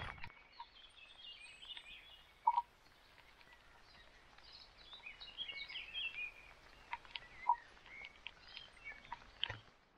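Songbirds chirping and trilling in a rain-soaked wood, many short calls layered over a faint background hiss, with scattered sharp little taps and one short louder sound about two and a half seconds in.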